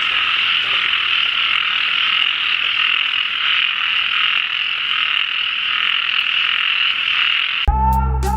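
A dense chorus of many frogs calling at once, a steady, loud din. Near the end it cuts off suddenly and music begins.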